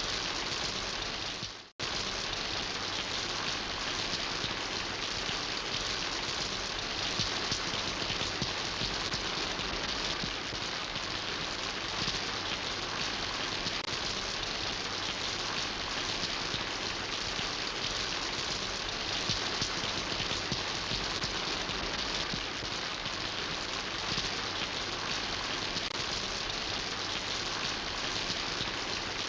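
Steady rain falling, an even hiss of many drops. About two seconds in it fades and cuts out briefly, then resumes.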